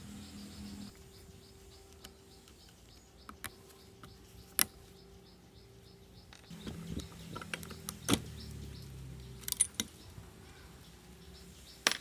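Sharp metallic clicks and clinks of hand tools and engine parts as the piston is taken off a Shindaiwa 685 chainsaw's crankcase, with several seconds of low scraping and rubbing in the middle. A faint chirping repeats a few times a second behind it.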